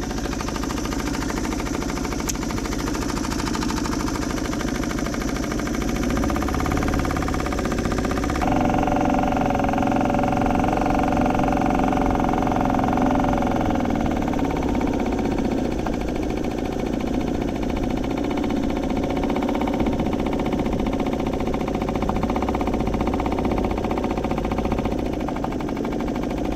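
Suzuki 2.5 hp four-stroke outboard motor running steadily, pushing the skiff at trolling speed, its note shifting about eight seconds in.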